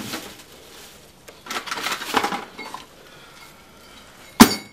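Tools and small items clinking and rattling in a metal tool-chest drawer as hands rummage through it, in a few separate spells, with one sharp, loud clank near the end.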